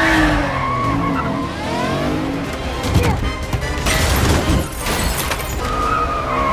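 Car-chase soundtrack: tyres squealing in gliding rising and falling pitches over a running engine, with a crash and clatter of debris about three seconds in and again around four to five seconds in, over music.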